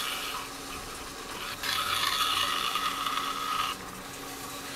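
A wad of paper towel rubbing against a wood blank spinning slowly on a wood lathe as thin CA glue is spread over it: a soft hiss that swells between about one and a half and three and a half seconds in. The lathe's low, steady hum runs underneath.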